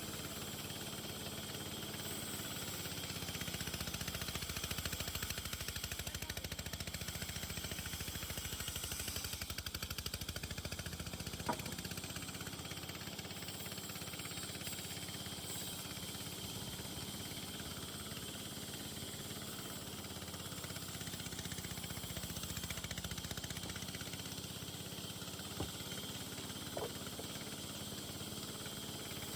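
Steady low mechanical hum from a running engine or motor, with a few single sharp clicks.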